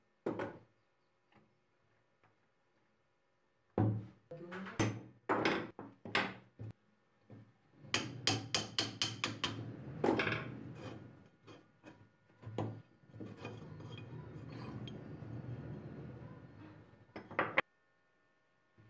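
Parts of a rusty antique meat grinder being taken apart and handled on a wooden bench. There are scattered knocks and clinks of metal on wood and a quick run of taps, then a few seconds of steady scraping and a sharp knock near the end.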